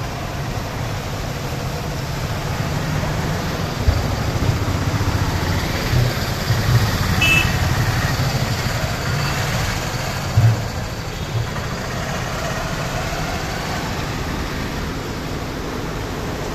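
Street traffic moving through floodwater: engines of auto-rickshaws, motorbikes and cars running over a steady rumble. A few low thumps come about four, seven and ten seconds in.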